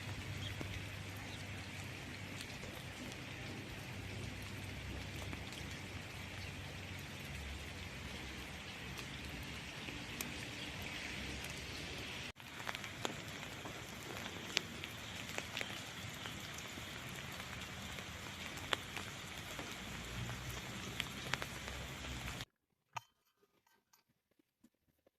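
Steady rain falling, with scattered sharper drop ticks. It is briefly interrupted near the middle, then continues and cuts off suddenly a few seconds before the end.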